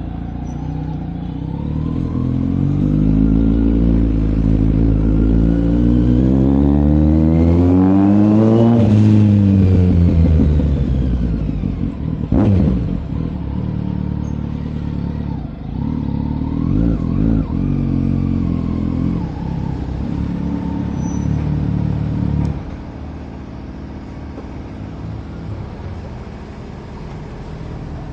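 Kawasaki Z900's inline-four engine under way: the revs climb steadily for several seconds, then fall off about nine seconds in. A brief sharp knock comes about twelve seconds in. The engine then runs at a steadier speed and turns quieter a few seconds before the end.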